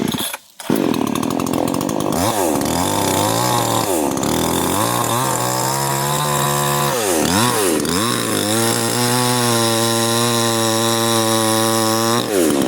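New Chinese 58cc two-stroke gas chainsaw with a 20-inch bar cutting through a log. The engine comes up to speed about a second in, its pitch dipping and climbing a few times, then holds steady at high revs for several seconds before falling off near the end as the cut finishes.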